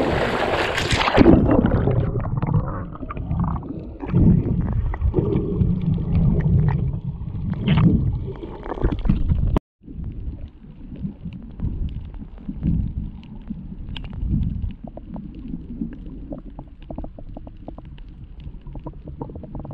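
Action camera going under the sea water about a second in: the wind and surf hiss gives way to muffled underwater rumbling and gurgling, with scattered small clicks and knocks from the water and the snorkeller's movements.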